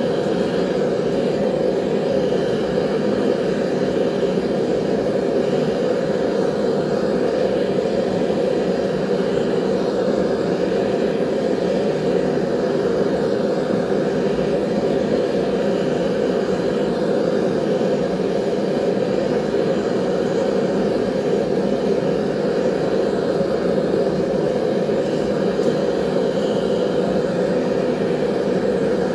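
Forge running with a loud, low, steady rush while a knife blade heats inside it for annealing.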